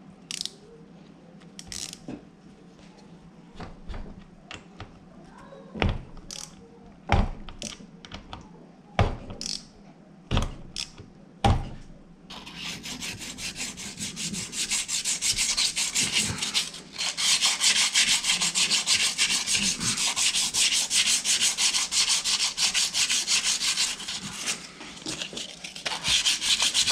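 Sandpaper rubbed rapidly back and forth over the rusty steel flywheel of a Honda XR70 engine to clean off the rust. This starts about halfway in. Before it come a handful of sharp clicks and knocks as engine parts are handled.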